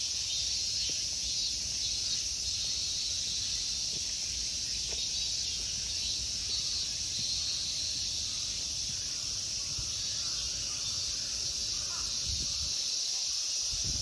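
Chorus of summer insects: a steady, shrill, unbroken buzz.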